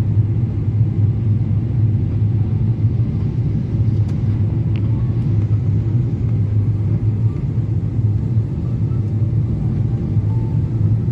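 Steady low rumble of an airliner's engines and rushing air, heard from inside the passenger cabin during the descent to landing.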